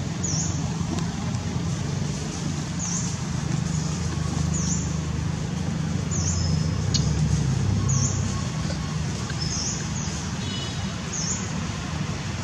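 Steady low rumble of distant road traffic, swelling a little about seven seconds in, with a short high chirp repeating about once a second.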